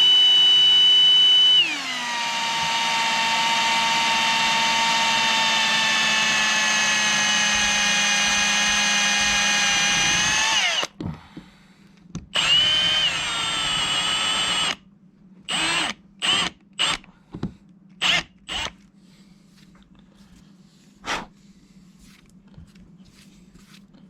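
Cordless drill running at high speed. Its whine drops in pitch about two seconds in as the bit takes load, runs steadily until about eleven seconds, then winds down. A second shorter run follows, then several brief trigger blips, as holes are drilled in the boat's fiberglass.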